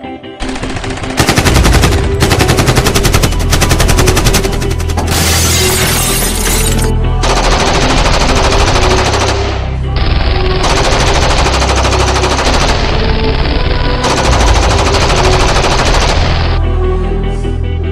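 Dubbed-in machine-gun fire sound effects, long rapid automatic bursts with short breaks, starting about a second in, laid over background music.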